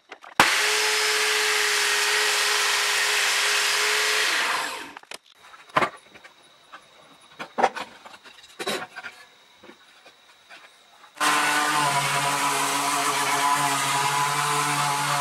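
A table saw cutting wood, its blade running with a steady whine, fades out after about four seconds. Then a few light knocks and clicks as an old hinged wooden chessboard box is opened and handled. About eleven seconds in, an electric sheet sander starts up and runs steadily against a wooden board.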